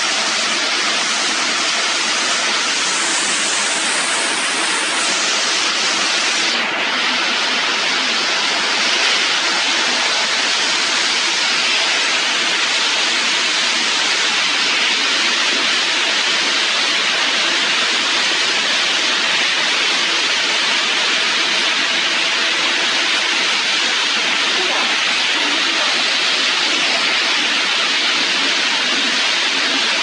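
Steady, loud hiss and hum of a plastic twine and raffia production line running, with the extruder, stretching rollers and winding machines going together and no single beat standing out.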